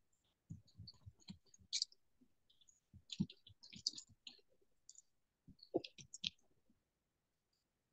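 Faint, irregular clicking and tapping, several small clicks in clusters with short gaps between them.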